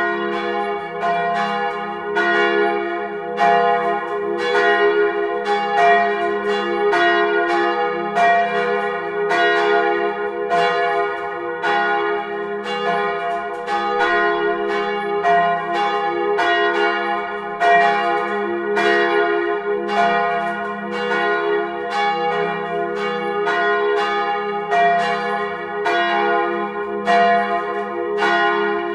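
Petit & Fritsen bronze church bells from 1948 (F, A-flat and B-flat), swinging on straight axles and ringing together in a full peal. Clapper strikes come several a second in an uneven, overlapping pattern, each ringing on into the next. The bells are loud and close.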